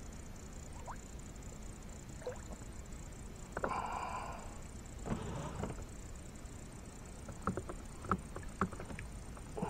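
Water splashing and sloshing at a small boat's side, in two short bursts about three and a half and five seconds in. A few sharp clicks follow near the end.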